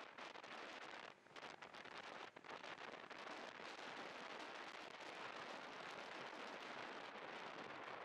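Wind rushing over a chest-mounted camera's microphone while riding a scooter: a steady, crackly rush with brief lulls about one and two seconds in.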